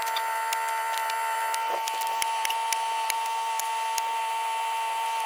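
Post-hole auger machine drilling through frozen ground, rocks, concrete and brick: a steady high whine with scattered sharp cracks and ticks as the bit grinds through debris.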